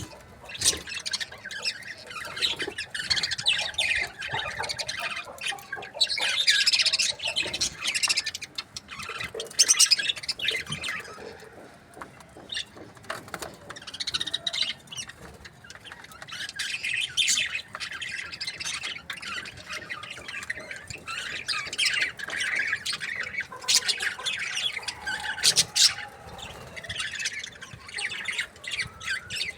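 Budgerigars chirping and chattering: many short, quick calls in irregular runs, with a few sharper squawks standing out above the chatter.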